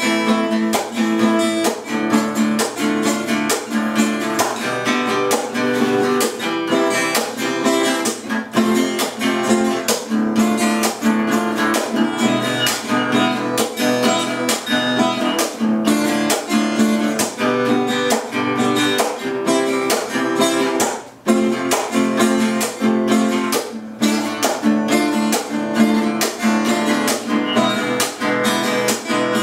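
Acoustic guitar played solo, a steady run of plucked notes and strummed chords, with a brief break about two-thirds of the way through.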